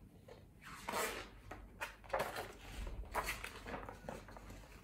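Paper pages of a picture book being turned and handled, a few short rustles and swishes of paper.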